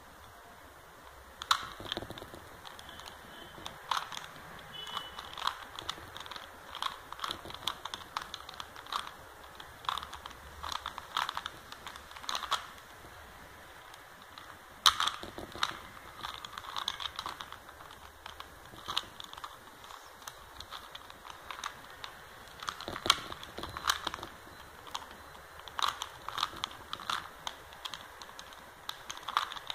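Plastic 3x3 Rubik's Cube being turned by hand: its layers click and clack in irregular runs of short snaps, a few of them sharper and louder.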